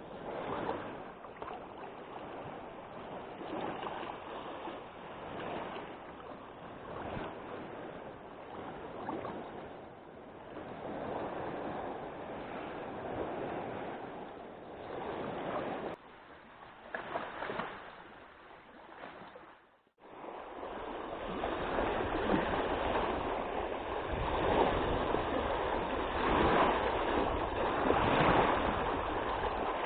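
Wind and choppy lake water splashing, a steady rough noise that rises and falls with the gusts. It cuts out for a moment about two-thirds of the way through and comes back louder.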